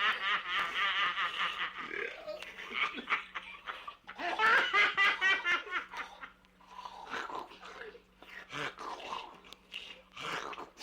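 High-pitched laughter from a Halloween sound-effects record, in two long bouts with shorter bursts after, over a steady low hum.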